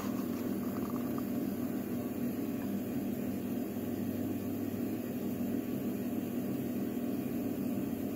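Steady low hum and hiss of background room noise, with no distinct clicks or handling sounds.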